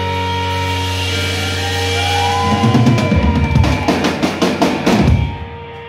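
Live rock band playing loud: electric guitars ring on a held chord, then about halfway through the drummer plays a fill on the kit with bass drum and snare. The sound drops away briefly near the end.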